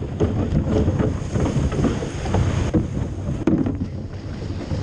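Wind buffeting the microphone of an action camera on a surf rowing boat at sea, over water rushing along the hull, with one sharp knock about three and a half seconds in.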